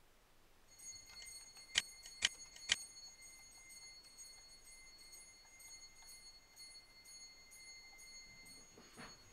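Faint, steady, high-pitched electronic hum made of several pure tones, from the simulated X-ray tube's movement sound as the tube is angled down. Three sharp clicks come close together about two seconds in, and the hum stops shortly before the end.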